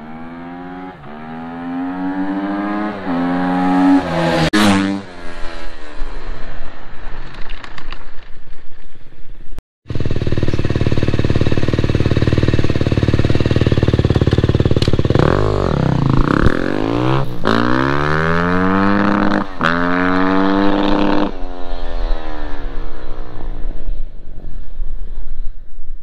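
KTM 250 EXC-F single-cylinder four-stroke enduro bike on its stock exhaust, accelerating with rising revs through gear changes and fading away after a brief peak about four and a half seconds in. After a sudden cut, the same bike fitted with an FMF PowerCore 4 silencer runs steadily close by, louder, then pulls away through three gear changes and fades out.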